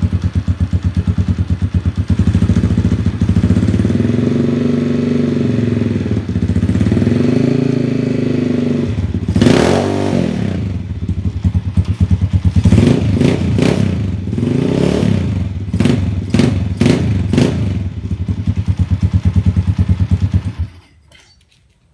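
Honda TMX 155's single-cylinder four-stroke engine running through a stainless bullet pipe with no silencer, idling with a pulsing beat. It revs up hard about nine seconds in, then gives a series of quick throttle blips, and shuts off shortly before the end.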